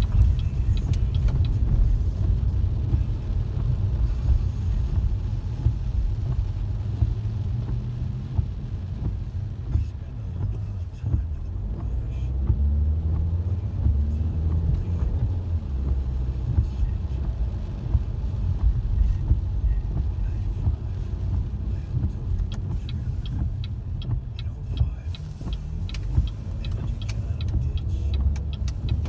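Inside a moving car on wet roads: steady low engine and tyre rumble, with the engine note rising in pitch about halfway through as the car speeds up. Scattered light clicks come in near the end.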